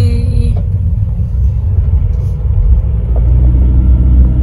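Car cabin noise while driving: a steady low rumble of engine and road noise, heard from inside the car, growing a little louder about three seconds in.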